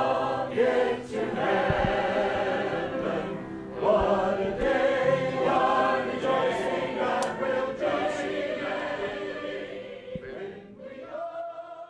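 A group of voices singing a hymn together in sustained notes, fading out near the end.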